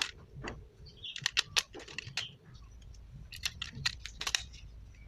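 Irregular quick clicks and taps of small hard plastic parts being handled, coming in two flurries.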